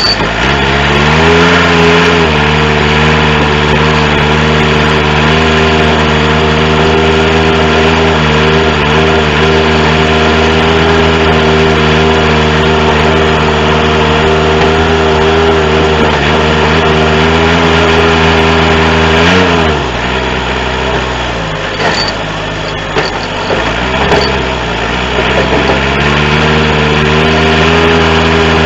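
John Deere 210C backhoe loader's four-cylinder diesel engine running under the throttle: it speeds up in the first couple of seconds and holds steady at raised revs, then drops back about two-thirds of the way in, sags again, and climbs back up near the end.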